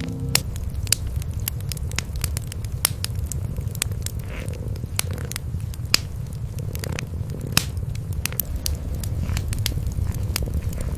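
Cat purring in a steady low rumble, under the irregular sharp pops and crackles of a wood fire in a fireplace.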